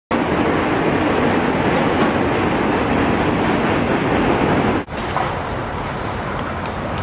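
Steady rushing noise of a street scene's ambience, cutting out for an instant about five seconds in and resuming quieter.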